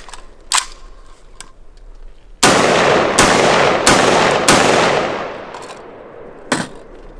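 AR-15 rifle firing 5.56/.223 rounds: four quick shots about two and a half seconds in, each with a long rolling echo, and single cracks shortly after the start and near the end. The rifle is cycling reliably from a military magazine.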